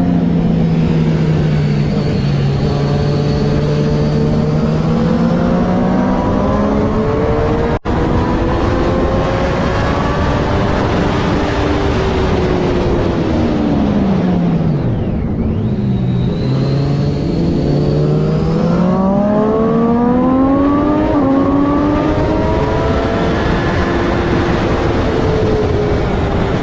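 Triumph Daytona 675R's inline three-cylinder engine racing, with revs rising and falling through the gears. About halfway through the pitch drops low and then climbs again in steps, heard over steady wind rush.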